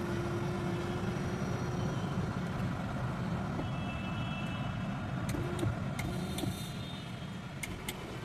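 Steady low hum inside a car cabin, with a few faint clicks in the second half.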